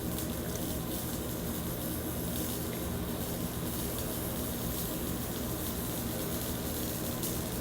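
Wire-feed welding arc from a Lincoln Electric S350 power source in STT (surface tension transfer) mode, laying a root pass on 6-inch Schedule 40 carbon steel pipe with .045-inch ER70S-6 wire: a steady, even sizzle.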